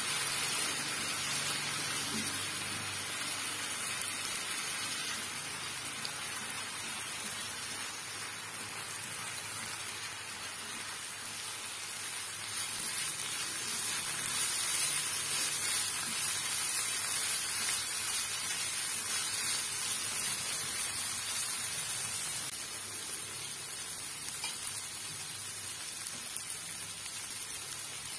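Diced tomatoes and vegetable strips sizzling in hot oil in a nonstick frying pan while being stirred, a steady sizzle that swells a little around the middle.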